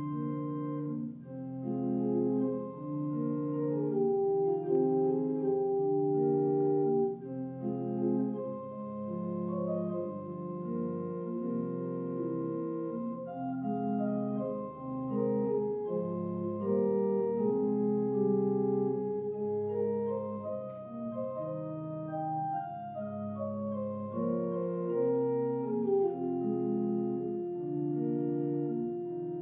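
Church organ playing slow held chords with a melody moving note by note above them.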